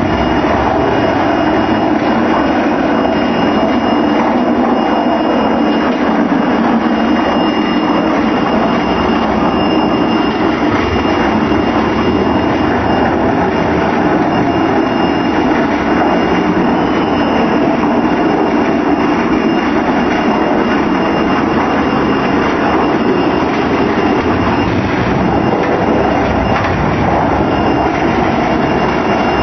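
Electric drum concrete mixer running: a loud, steady mechanical noise with a thin, steady high whine over it, unchanging throughout.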